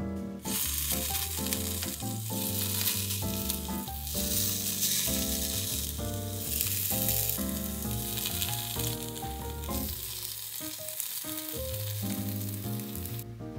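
Food sizzling, a steady frying hiss that cuts off abruptly near the end, over background music with a melody.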